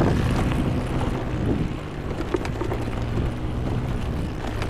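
A small vehicle's engine running steadily while travelling over a rocky dirt track, with wind on the microphone and a few short knocks from the rough ground.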